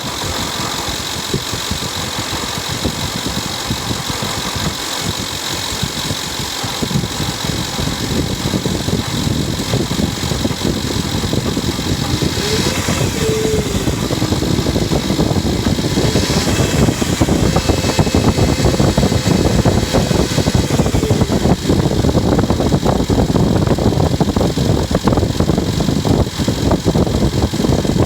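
An engine running and making an unusual noise, a dense rapid clatter over its running sound, growing gradually louder.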